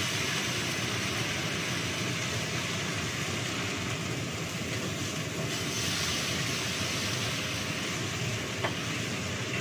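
Kitchen range hood exhaust fan running with a steady whooshing hum. A single light clink of metal utensils or dishes comes near the end.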